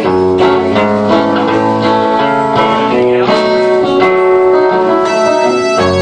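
Live rock band playing a song: electric guitars over a drum kit and keyboard, with regular drum hits driving a steady beat.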